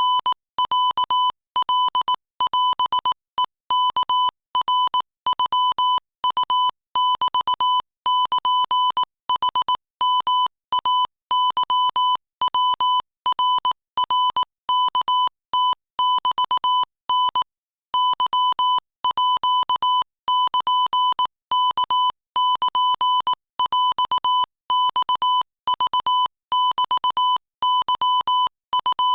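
Morse code sent at about 22 words per minute: a single steady high tone keyed on and off in rapid dots and dashes, with one brief pause between groups a little past the middle.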